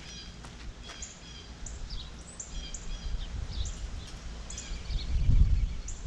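Small birds chirping, many short high chirps scattered throughout, over wind rumbling on the microphone that gusts up near the end.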